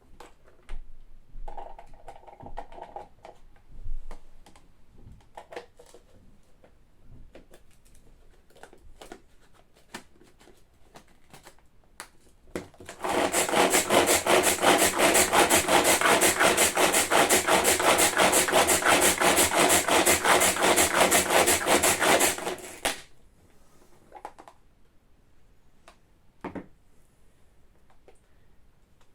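Electric mini chopper whizzing onions: the motor starts about 13 seconds in, runs loud and even for about ten seconds while mincing, then stops abruptly. A few light clicks and knocks come before and after it.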